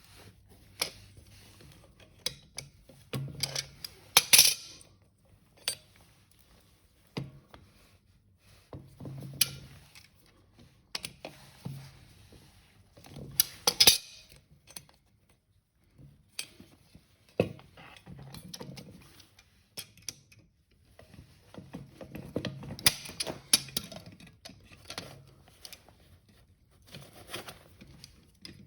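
Small metal parts clinking and knocking as they are handled, in irregular bursts with scattered sharp clinks and some rustling between them; the loudest clinks come about 4 seconds in and again about 14 seconds in.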